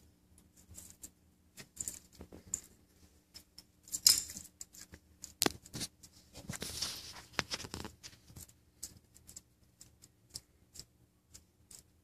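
Nile monitor grabbing and eating a fuzzy mouse among bark and wood chips: scattered sharp clicks and scratches. There is a louder scrape about four seconds in and a longer rustle from about six to eight seconds.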